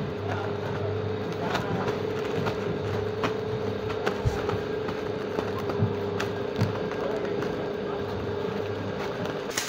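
Conveyor belt running with a steady mechanical hum and one held tone. Scattered light clicks and crinkles come from the chip bags riding on it.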